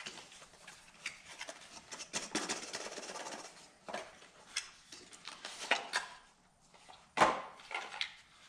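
Small parts and packaging being handled: rustling and rubbing with scattered clicks, and a sharper knock about seven seconds in.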